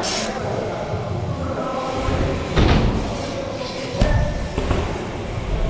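Bike tyres rolling over the wooden and coated ramps of an indoor skatepark, a steady rumble broken by several hard thuds, the loudest a little before the middle and another about two-thirds through, as the bike hits and lands on the ramp surfaces.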